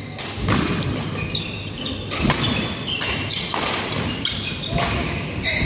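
Badminton rally: rackets striking the shuttlecock in sharp cracks, and court shoes squeaking in short high chirps as the players move and lunge.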